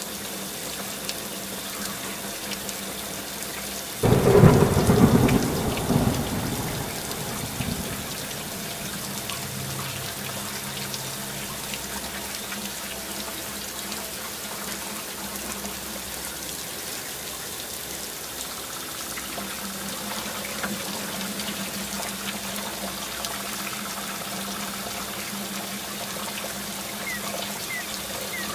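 Steady rain with a loud rumble of thunder about four seconds in that dies away over a few seconds.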